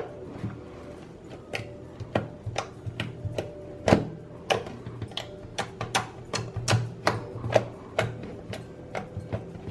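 Sticky fluffy slime being squished and stretched by hand, giving irregular sharp clicking pops several times a second.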